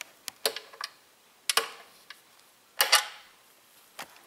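Irregular light clicks and taps, about seven in all, of small screws and the mixer's plastic housing being handled, the loudest about three seconds in.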